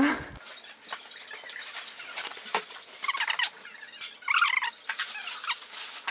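Clear plastic wrapping rustling and crinkling as an infant car seat is pulled out of its bag, with squeaks from the plastic rubbing against the seat about three and four seconds in.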